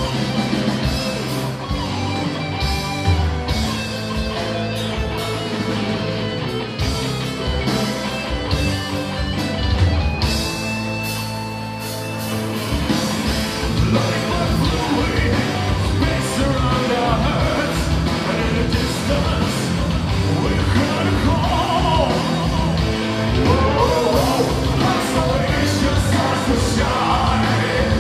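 Symphonic metal band playing live: drums, electric guitars and keyboards, with a lead singer over them. The drums drop out briefly about ten seconds in, and the singing stands out more in the second half.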